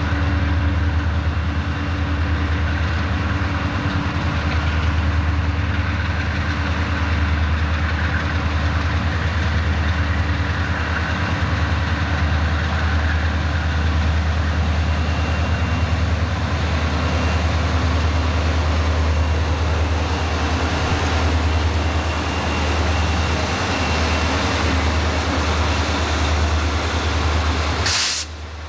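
A lash-up of Burlington Northern diesel-electric freight locomotives running under load as they approach and pass, a loud steady low engine drone with track and wheel noise over it. Near the end the sound is broken by a sharp click and drops away abruptly.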